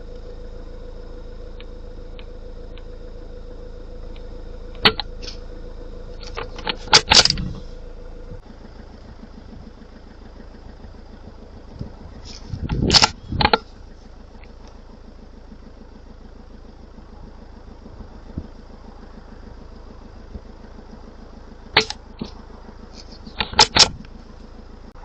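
Quiet .22LR rifle shots and the metallic clicks of the action being worked, in four short clusters of sharp cracks and knocks, over the steady hum of an idling vehicle engine.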